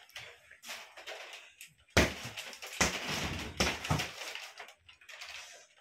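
A small hanging punching bag being punched: one sharp smack about two seconds in, followed by a couple of seconds of further hits.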